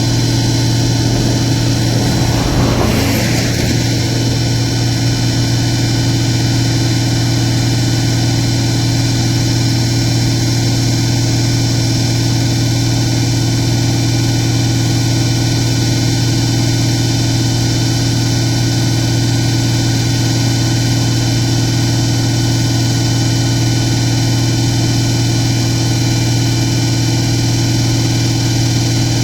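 Diesel engine idling with a steady, unchanging deep hum, with a brief rush of noise about three seconds in.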